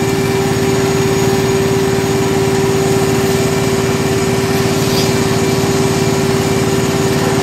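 Portable bucket milking machine's vacuum pump running steadily while the teat cups milk a cow, a constant even hum with one strong steady tone.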